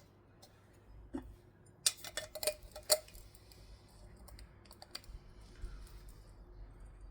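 A few light clicks and taps of small headlight parts being handled, clustered about two to three seconds in, with fainter ones later.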